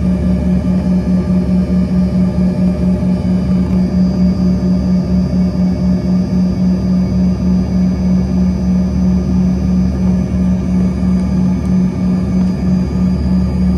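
Embraer E135's Rolls-Royce AE 3007 turbofan running at low taxi power, heard from inside the cabin beside the engine: a loud, steady low drone with a faint steady whine above it, throbbing about three times a second.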